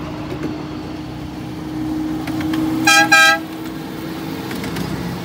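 Two short toots, back to back about three seconds in, from a miniature railway locomotive's horn, over a steady low mechanical hum.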